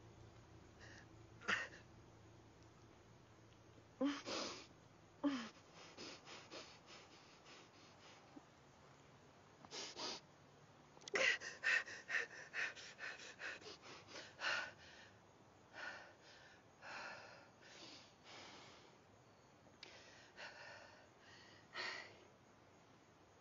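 A woman's pained gasps and sharp breaths, with short strained vocal sounds, coming in uneven bursts and quickening into a rapid run of breaths about halfway through.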